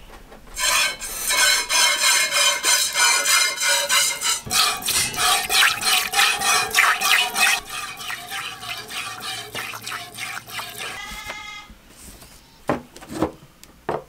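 A goat being hand-milked: streams of milk squirting rhythmically into a stainless steel pail, a few squirts a second, quickening after about four seconds and fading after about eight. A few sharp knocks near the end.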